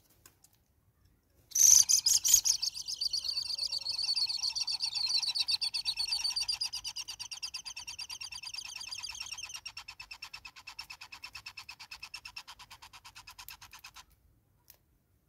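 Hornbill at its nest hole giving a long, rapid pulsed chattering call. It starts suddenly and loud about a second and a half in, then fades gradually over about twelve seconds and stops abruptly near the end.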